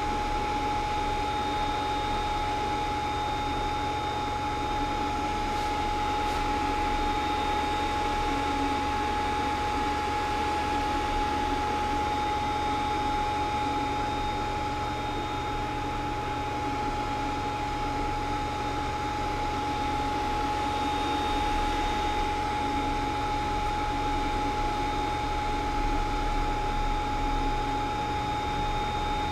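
Creality CR-10S Pro 3D printer running mid-print, a steady fan whine with a constant high tone over a low hum.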